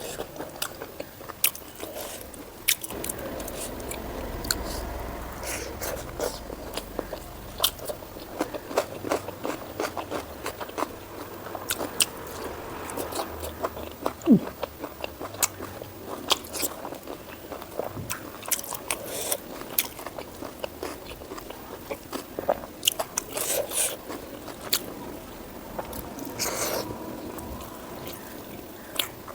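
Close-miked eating sounds: chewing, with many quick, irregular wet mouth clicks and smacks from big bites of pork fat and white rice.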